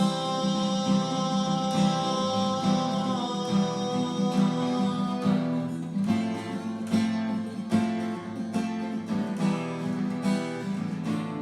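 Acoustic guitar strumming a song's instrumental passage between sung lines.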